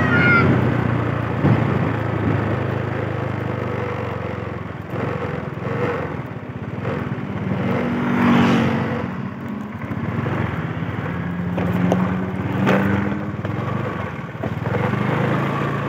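Small motor scooter engine running while riding, with wind and road noise; the engine note rises and falls with the throttle.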